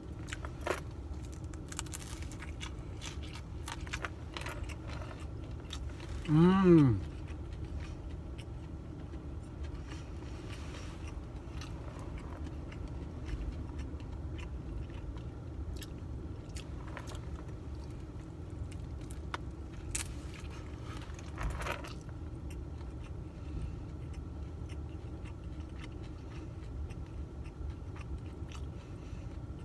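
A person chewing and biting into a fried beef sambusa, with small clicks and crunches of the pastry, over a steady low hum in the car cabin. About six seconds in, a short hummed voice sound of enjoyment stands out as the loudest moment.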